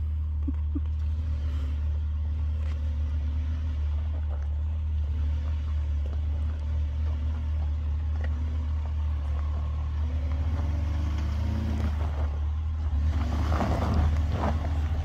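Chevrolet Colorado ZR2 pickup crawling up a rocky trail, its engine running with a steady low drone. The engine note rises around ten to twelve seconds in, and the sound grows louder near the end as the truck comes closer.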